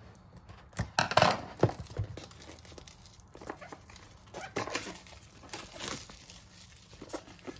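Scissors cutting the seal on a cardboard product box, then the packaging being handled and opened: quiet, irregular rustling, crinkling and small taps.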